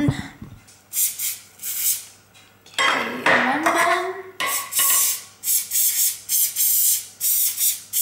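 Aerosol can of canola cooking spray hissing in short squirts into a metal muffin tray, coming quicker in the second half at about two a second, with the tray knocking as it is handled.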